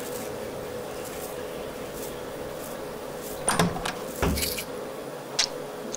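Interior door with a lever handle being opened: a click and knock a little past halfway, a heavier thump shortly after, and a sharp click near the end, over a steady hum.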